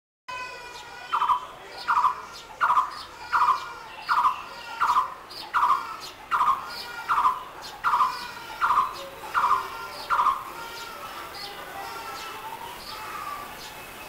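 Blue-throated barbet calling: a loud, rhythmic series of about thirteen identical notes, roughly one every three-quarters of a second, which stops about ten seconds in. Fainter, higher bird chirps run underneath and carry on after it.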